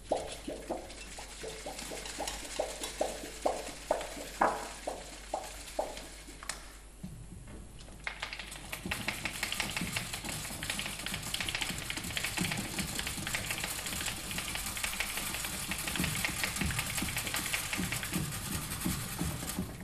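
Live-performed foley made with voices and kitchen tools: a string of short pitched pops, about two a second, then after a brief lull a continuous rapid raspy scraping.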